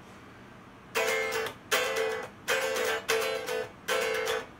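After about a second of low hiss, a plucked string instrument plays a riff of five short, sharply struck chords at an even pace. Each chord rings for about half a second.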